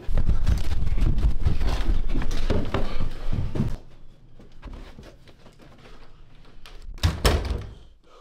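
A sudden loud burst of heavy thuds and crashing that runs for nearly four seconds, then quieter knocking, and a short loud thump and rattle from a door about seven seconds in, as a doorknob is gripped.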